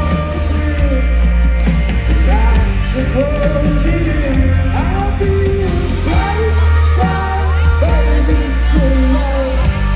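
Live band performance with singing over the band and a heavy, booming bass.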